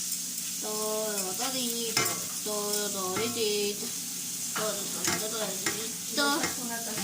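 Spoon scraping and stirring wet, washed rice into a pot, over a steady hiss, with a few short pitched voice-like sounds in between.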